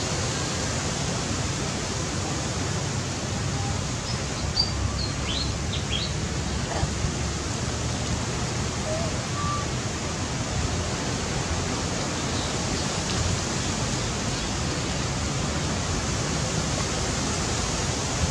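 Steady outdoor background hiss with a few faint, high bird chirps about four to six seconds in.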